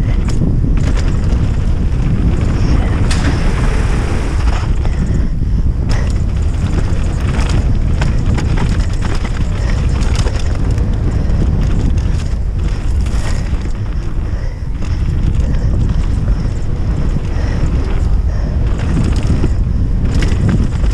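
Downhill mountain bike descending at speed: heavy wind rumble on the microphone, with the tyres running over dirt and loose rock and frequent short knocks and rattles as the bike hits bumps.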